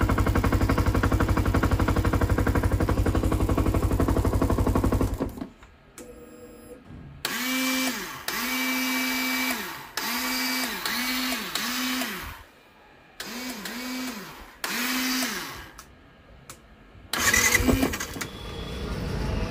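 Motorcycle electric starter pressed in short goes, about eight times: each time the starter motor whirs up in pitch, holds briefly and winds down, spinning freely, the typical sign of a slipping one-way starter clutch. Before that, a loud steady sound cuts off about five seconds in.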